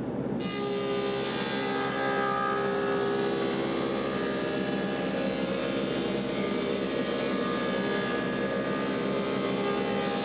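Woodmaster thickness planer with a helical cutterhead running under load as it planes a hardwood board: a steady motor hum with several steady tones, and a cutting hiss that comes in about half a second in as the board engages the cutterhead.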